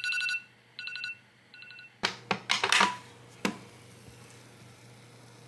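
Electronic alarm beeping in quick pulsed groups, three bursts that get shorter, the timer set for the boiling eggs going off. About two seconds in come several sharp clattering knocks of things being handled, then only a low hum.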